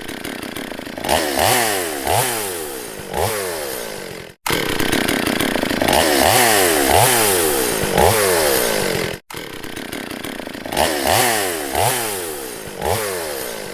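Chainsaw engine running and being revved: quick throttle blips that rise sharply and fall back, with a longer stretch held at high revs in the middle. Two brief cut-outs about 4 and 9 seconds in.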